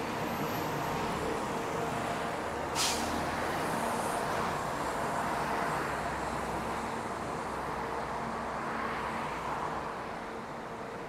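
City street traffic: a steady wash of passing cars and other road vehicles, with a short, sharp hiss about three seconds in.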